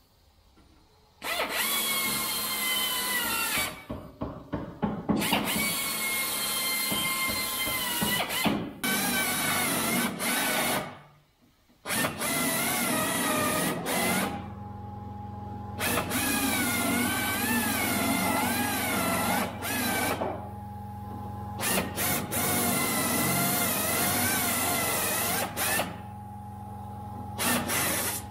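Hand-held air drill drilling out spot welds in a car body panel, its whine wavering in pitch under load and running in several bursts with short stops between. About halfway through, a steady low hum starts and carries on underneath.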